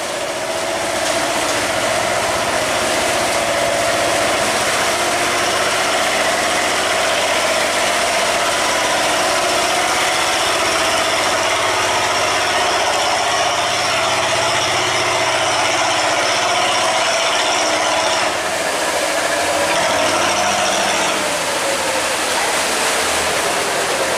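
Wooden cargo boat's engine running hard and steady as it pushes against a strong current through a sluice gate, with water churning and rushing along the hull. The level dips slightly about eighteen seconds in.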